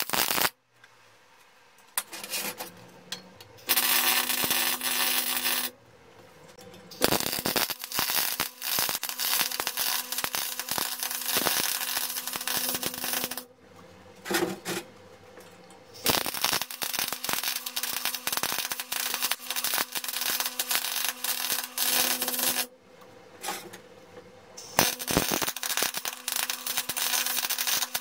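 MIG welding arc crackling and spitting as a steel pipe is welded to a round steel base plate. It comes in four runs of about two to seven seconds with short pauses between them, and a steady low hum sounds under each run.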